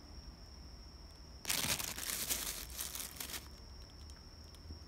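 Thin plastic bags crinkling for about two seconds, starting about a second and a half in, as bakery bread in them is handled. A faint steady high-pitched whine and low hum sit underneath.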